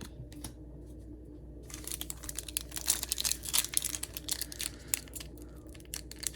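Foil Pokémon booster pack wrapper crinkling and tearing as it is handled and opened, a dense crackle starting about two seconds in.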